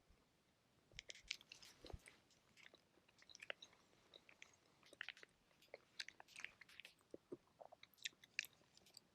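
Very faint, irregular soft clicks and crackles close to the microphone, a few every second.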